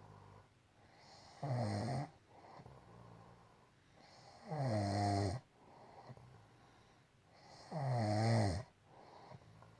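A woman snoring in sleep: three loud, rattling snores about three seconds apart, with quieter breathing between them.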